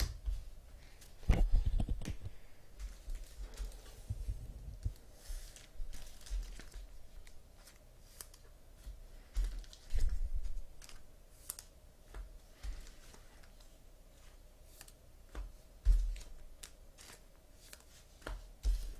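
Trading cards and card packs being handled on a table: wrappers torn and crinkled, cards clicking and sliding, with a few dull thumps against the table.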